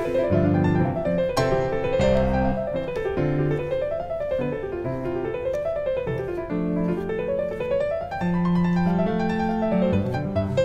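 Background piano music, with flowing runs of notes that climb and fall over and over.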